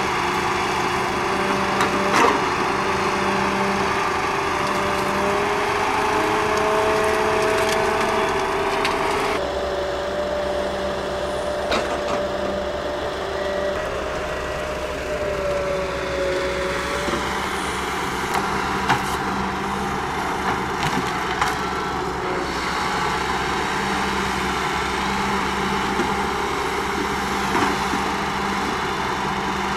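2015 Ponsse Buffalo Alpine forwarder's diesel engine running under hydraulic load, its pitch rising and falling as the crane swings and lifts logs into the bunk. Now and then a sharp knock of a log landing on the load.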